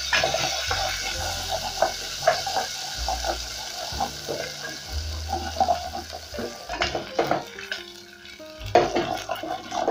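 Ginger sizzling in hot oil in a stainless steel pot while a wooden spoon stirs it, with scrapes and knocks of the spoon against the pot. The sizzle dies down about two-thirds of the way in.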